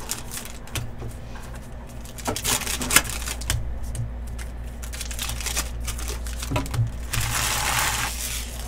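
Foil trading-card pack wrappers crinkling and cards being handled, with scattered sharp clicks and flicks, and a louder rustle about a second long about seven seconds in, over a steady low hum.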